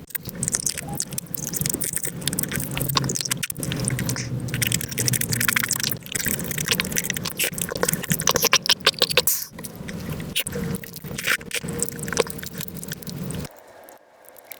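Wet eating sounds of soy sauce marinated crab with rice, played back at five times speed: a dense stream of chewing, sucking and slurping clicks with some scraping, dropping off briefly near the end.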